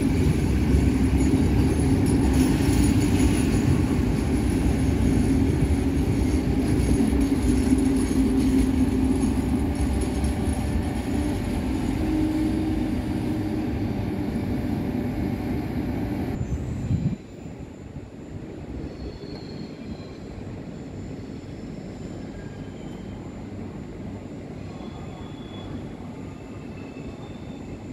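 VR electric passenger trains in a station: a Pendolino runs close past with a loud, steady rumble and hum, and an Sr3 locomotive hauls an Intercity in. About 17 seconds in, the sound drops abruptly to a quieter rolling noise with faint high wheel squeals.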